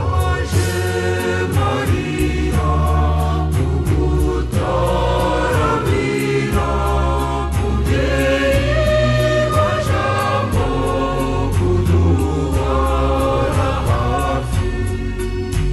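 Choir singing a song over instrumental backing with a steady beat and a constant bass line.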